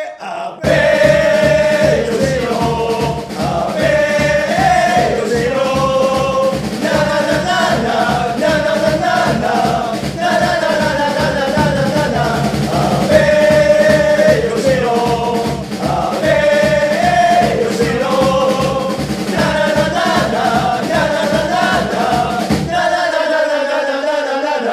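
Football supporters' chant sung in unison by a group of male voices, a repeated name call followed by 'na na na na-na' lines, over a steady drumbeat. The drums stop near the end while the singing carries on for a couple of seconds.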